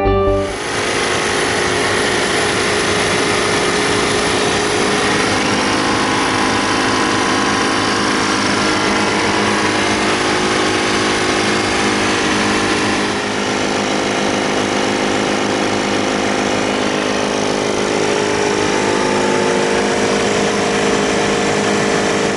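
Clarke 100-litre workshop air compressor running steadily, its motor and pump making a loud, continuous mechanical drone with a slight change in pitch about halfway through.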